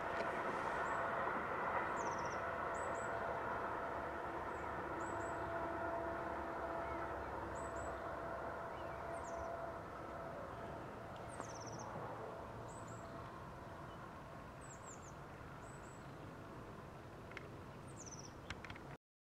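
Rail maintenance railcar running away along the track, its engine and wheel noise with a steady whine slowly fading. Birds sing over it with repeated short high chirps and quick falling chirps. The sound cuts off abruptly near the end.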